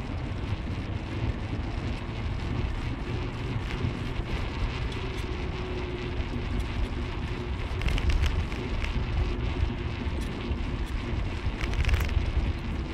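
Steady road and engine rumble of a car driving, with wind noise and a brief louder crackle twice.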